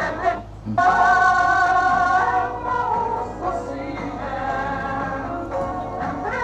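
Music with a pitched lead holding long notes. It drops out briefly about half a second in, then comes back.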